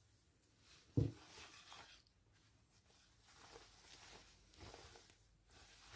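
Soft rustling of satin pajama fabric being handled and folded, with a dull thump about a second in and a small click near the end.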